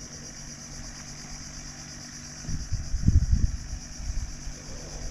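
Steady high-pitched drone of insects from the mangroves, over a faint low hum. About midway a short burst of low rumbling noise rises over it, the loudest sound here.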